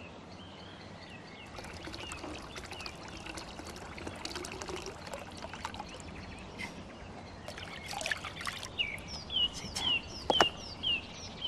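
Water running from an outdoor standpipe tap into a plastic barrel. Over it a bird chirps: short falling notes about two a second from around eight seconds in, with a sharp knock about ten seconds in.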